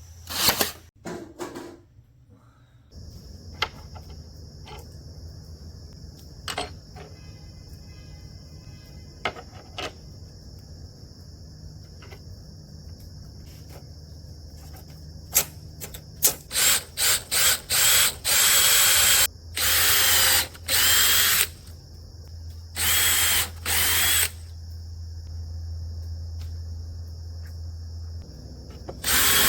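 Power drill run in short trigger bursts while driving screws or boring into wood, with several loud bursts in a row in the second half over a steady workshop hum and scattered clicks.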